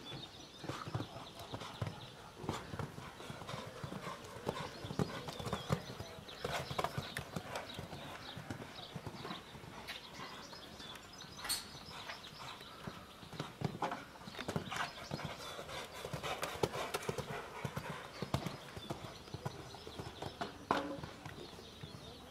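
Show-jumping horse's hooves cantering on a sand arena: a steady, uneven run of hoofbeats through the round, with a sharp click about halfway through.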